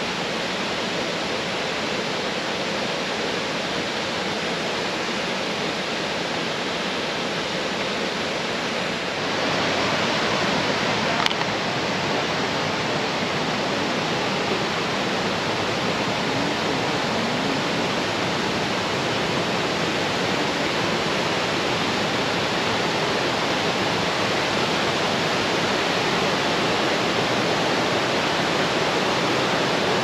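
Steady rushing water. It gets a little louder about nine seconds in, and a brief click follows a couple of seconds later.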